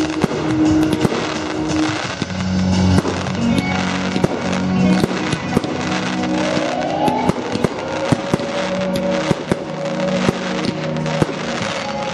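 Fireworks display going off: a rapid, irregular run of bangs and crackles, with music playing underneath.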